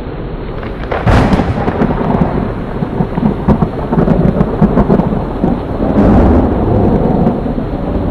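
Heavy rain pouring steadily, with a sharp thunderclap about a second in that rolls on as a long low rumble, swelling again later.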